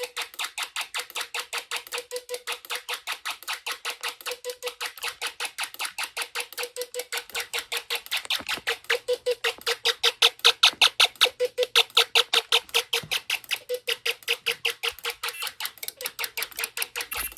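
Snap Circuits fire alarm buzzer sounding a drill, chopped into a rapid pulsing tone at about six beeps a second that grows louder around the middle.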